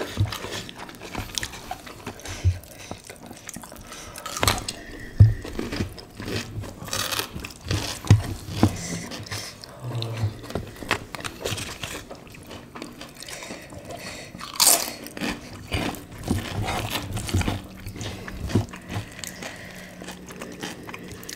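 Close-miked chewing and crunching of food eaten by hand, rice with squid in chili sambal and crisp crackers, with many short sharp crackles and wet mouth sounds.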